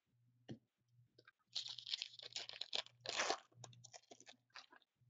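Foil wrapper of a Black Diamond hockey card pack being crinkled and torn open: two main bursts of crackling a second and a half to three and a half seconds in, then scattered crackles.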